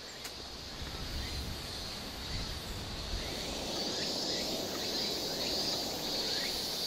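Outdoor ambience: a steady high insect drone that grows stronger about halfway through, with a few short bird chirps and a low rumble.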